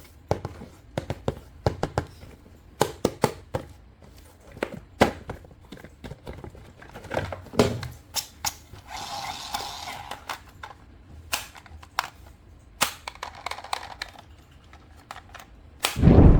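Plastic toys and packaging being handled at close range: scattered clicks and knocks, with a short rustle about nine seconds in.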